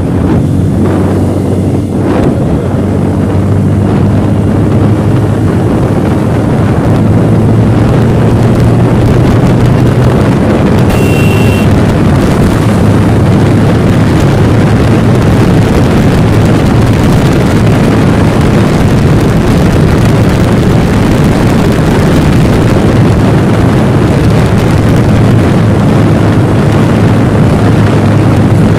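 Motorcycle engine running at cruising speed, with heavy wind rush on the rider's camera microphone, growing a little louder over the first few seconds as the bike speeds up. A brief high beep sounds about eleven seconds in.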